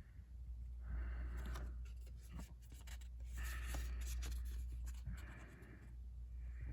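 Crisp new paper banknotes crackling and rustling as they are handled and turned over, in a run of quick crinkles through the middle.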